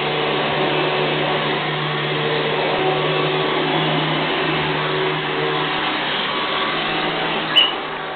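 Vacuum cleaner running steadily, a hissing noise over a constant low hum. Near the end there is one short sharp click.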